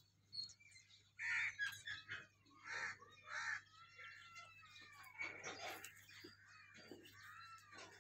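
Crows cawing: a few short, harsh caws in the first few seconds, then thinner, drawn-out calls that fall in pitch.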